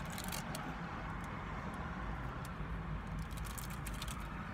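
Steady low rumble heard inside a car, with scattered soft clicks of chewing and mouth sounds from eating a Twinkie, clustered near the start and again about three seconds in.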